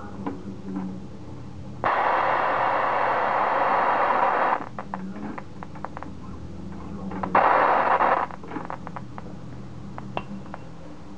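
Homemade Geiger counter sounding through a computer speaker: scattered sharp clicks, twice broken by a loud, steady hiss that starts and stops abruptly, about three seconds and then about one. The hiss is the tube oversaturating into continuous discharge, which the builder puts down to the voltage being turned up too high.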